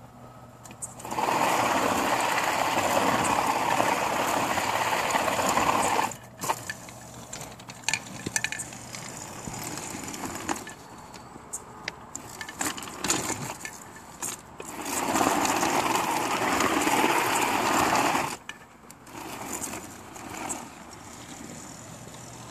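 Electric drive motors of a homemade four-wheel robot running in two spells of several seconds each as it drives, a steady whir, with quieter clicks and rattles between the runs.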